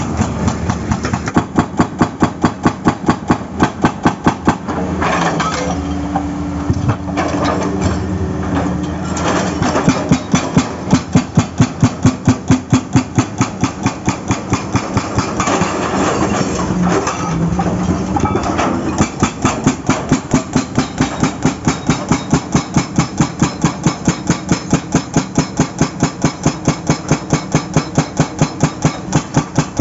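Excavator-mounted hydraulic breaker hammering on asphalt in long runs of rapid, evenly spaced blows, with the excavator's diesel engine running steadily underneath. The hammering stops for a few seconds about five seconds in and again around sixteen seconds in, leaving only the engine.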